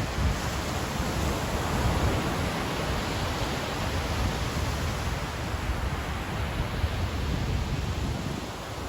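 Ocean surf breaking and washing onto a sandy beach: a steady rushing hiss of waves with a deep rumble underneath, easing off slightly near the end.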